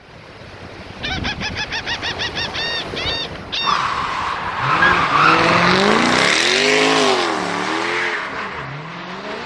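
A quick run of about a dozen high squeaky chirps, then a motor vehicle engine revving up and down several times over a hiss.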